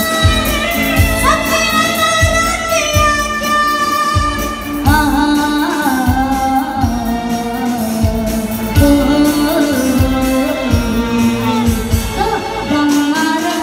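Live band music: a woman singing a song into a microphone through the PA, with saxophone and keyboard accompaniment over a steady beat. Long held instrumental notes open it, and her singing comes in about five seconds in.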